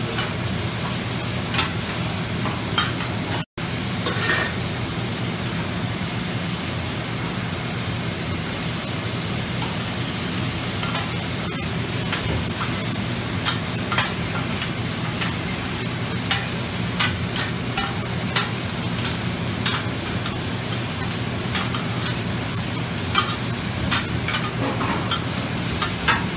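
Beef, vegetables and egg sizzling on a flat-top steel griddle while two metal spatulas chop, scrape and clack against the hot surface in short irregular strikes, over a steady low hum.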